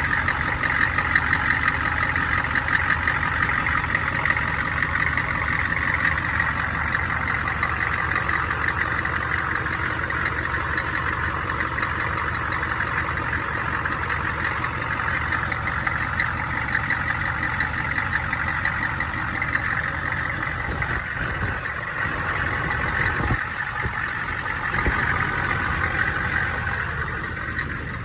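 Car engine running at idle with a fast, high-pitched metallic banging, which the owner suspects comes from a cracked flexplate or crankshaft bolts coming loose.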